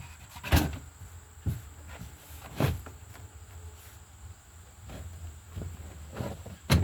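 A handful of knocks and thumps as objects are moved and handled by hand, with one sharp knock about half a second in and another near the end, over a steady high-pitched background whine.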